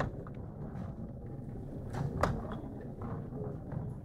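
Steel-tip darts striking a bristle dartboard: a few short, sharp knocks, the loudest about two seconds in, over the low murmur of a sports hall.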